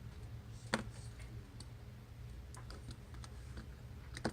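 Small hand tools clicking and ticking against the parts of an iPhone 6 during a repair. There is a sharp click under a second in, scattered light ticks later on, and another sharp click near the end, over a low steady hum.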